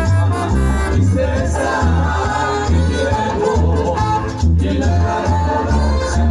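Live Ecuadorian dance orchestra playing an instrumental passage of a Latin tropical number: a heavy bass line pulsing on the beat under a melody.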